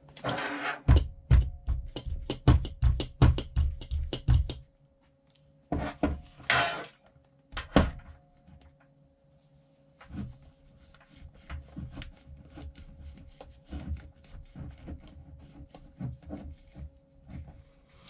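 Suspension seatpost parts being handled and fitted: a quick run of knocks and clicks, then a brief hiss about six seconds in and lighter scattered clicks.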